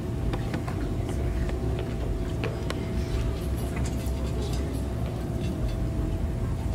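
Steady low rumble of room background noise with a faint steady hum, broken by scattered light clicks and rustles.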